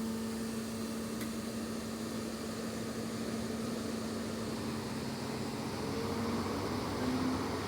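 Diesel engine of an HST class 43 power car running steadily, a low hum with a fainter higher tone over a rumble. Near the end the pitch shifts slightly up as the train gets ready to pull away.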